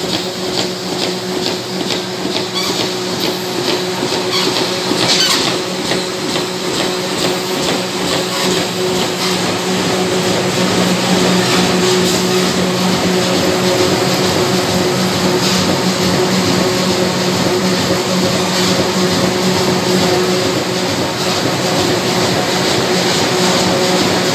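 Flexo printer slotter die cutter for corrugated carton boxes running in production: a steady mechanical drone with a low hum and a rapid clatter as boards feed through.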